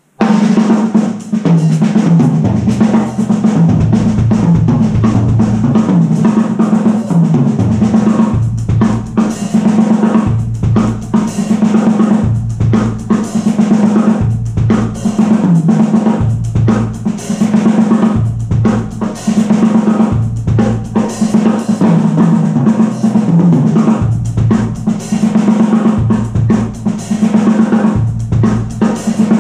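Acoustic drum kit played continuously in a practice groove: snare, bass drum and cymbals struck in a steady rhythm, recorded through the camera's own microphone.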